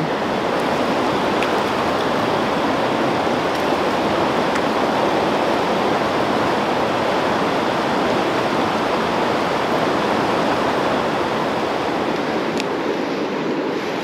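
Fast-flowing river running over rocks and riffles: a steady, even rush of water.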